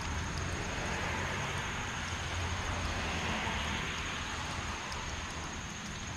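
Heavy rain falling steadily on a lawn and trees, a steady hiss that swells into a louder rush with a low rumble under it for a few seconds in the middle, then eases back.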